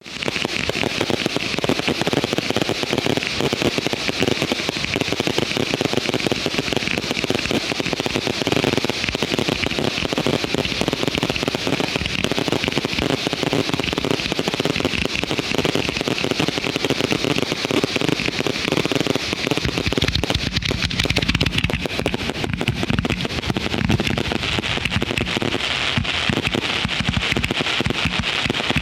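Fireworks finale: a dense, unbroken barrage of rapid-fire bangs and crackling reports from salute cakes, finale boxes and shells going off together, with heavier low booms in the second half.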